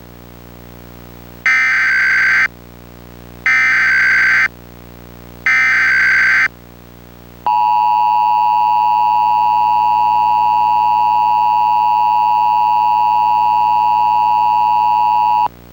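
Emergency Alert System tones. First come three one-second bursts of SAME header data, a harsh digital screech, about a second apart. Then the two-tone EAS attention signal (853 and 960 Hz) holds steady for about eight seconds and cuts off suddenly, over a faint steady hum.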